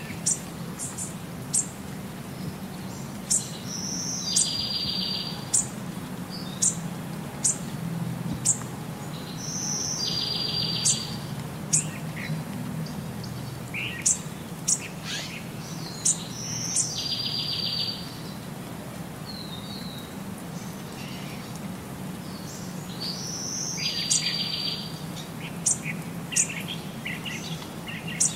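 Small songbirds chirping: many short high chirps, with a buzzy trill about a second long coming four times at even spacing, over a low steady hum.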